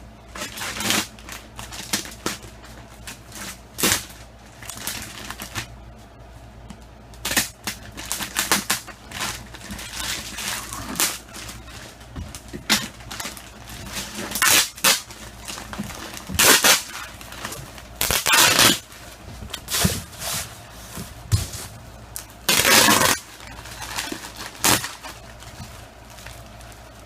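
Plastic wrapping on a rolled foam mattress being cut and torn open: irregular crinkling and ripping, in short bursts with a few longer, louder tears of about a second each in the second half.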